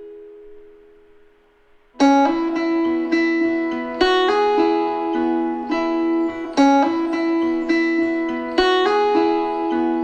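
Background music: a soft intro of plucked guitar notes fading away, then about two seconds in a louder plucked-guitar pattern starts, with new notes struck every half second or so.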